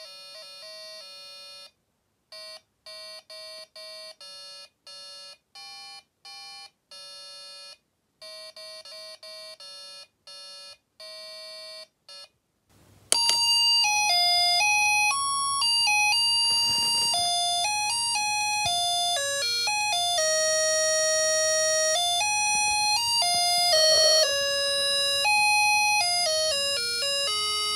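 Electronic laser harp kit beeping out single buzzy notes, one at a time with short gaps, as its beams are broken by hand. About halfway through it switches to playing its built-in tune, a quicker run of changing beeps, louder and with a low hum underneath.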